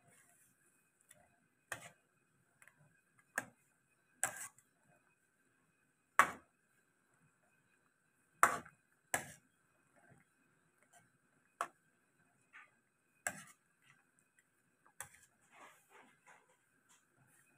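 A metal spatula or ladle knocking and clinking against the wok, sharp single knocks at uneven intervals of one to two seconds. A faint steady high tone sits underneath.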